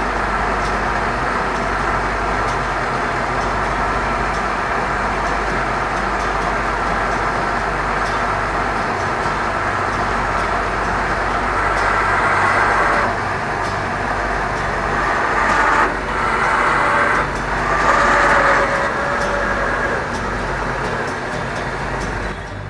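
Power Gear electric leveling jacks on a motorhome running through an auto-level cycle, a steady mechanical motor sound over a low hum, with several louder spells in the second half.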